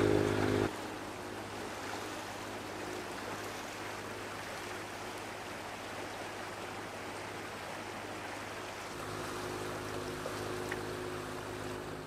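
Sailboat under engine power: a steady low engine hum under the rush and swish of water along the hull. The engine is louder for the first moment and again near the end.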